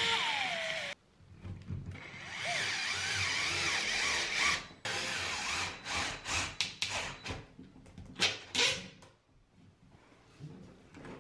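DeWalt cordless electric screwdriver drilling a pilot hole and driving screws into a wood strip behind drywall. It runs in several short spells that stop abruptly, with a string of short sharp bursts in the second half.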